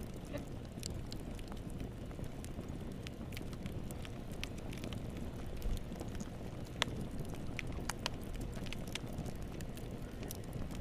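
Wood fire burning in a fireplace: a steady low rumble with scattered sharp crackles and pops, one louder pop about seven seconds in.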